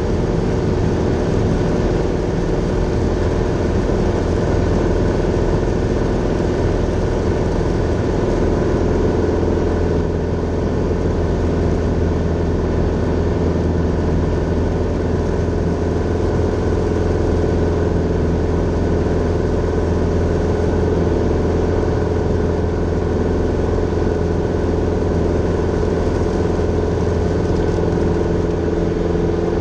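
Grumman Tiger's four-cylinder Lycoming O-360 engine and propeller running steadily in flight, heard from inside the cockpit as a loud, even drone.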